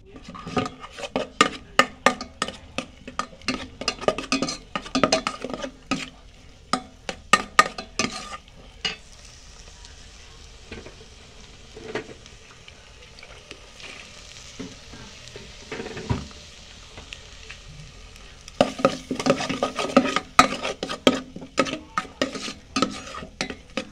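Fried rice sizzling in a pan while a metal spatula scrapes and clatters against the pan, tossing it. The clatter stops for about ten seconds in the middle, leaving only a steady sizzle with a few knocks, then starts again.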